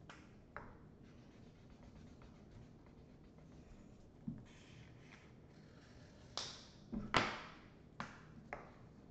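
Felt-tip markers scratching on paper, with about six sharp clicks and knocks of markers and their caps being handled and set down on a table, the loudest about seven seconds in.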